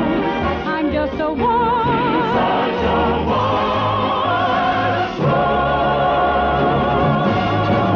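A soprano singing an operetta-style show tune with wide vibrato over an orchestra, moving into long held notes about five seconds in.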